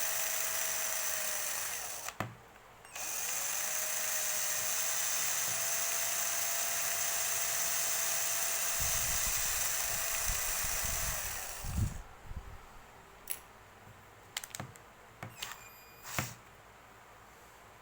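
A small power tool, like a mini drill, running with a steady high-pitched whir. It cuts out briefly about two seconds in, runs again, and stops about twelve seconds in. Light clicks and taps of handling follow.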